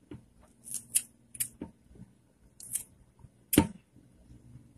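Kitchen scissors snipping liver into small pieces for a dog's food: a series of short, crisp snips at an uneven pace, with one louder click about three and a half seconds in.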